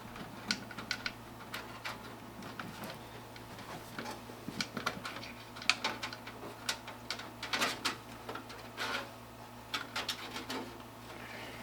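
Irregular clicks and light plastic rattles of cables and parts being handled inside a desktop computer case, over a faint steady low hum.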